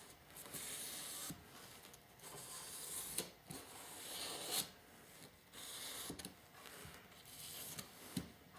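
Felt-tip marker dragged across the paper face of foam board, drawing lines: a faint scratchy rubbing in a series of strokes with short pauses between them.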